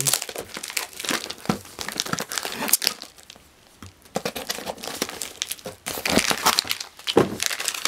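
Clear plastic wrapping crinkling as hands handle and work open a plastic-wrapped cardboard mailer, in irregular crackles that ease off for about a second midway and pick up again.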